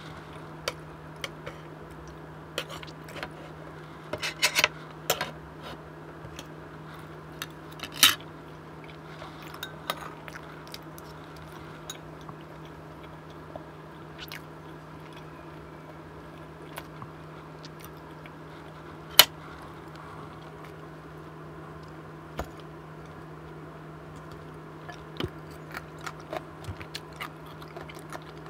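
Close-miked eating: soft chewing and mouth sounds, broken by scattered sharp clicks and clinks of a spoon and fork against the dishes, over a steady low hum.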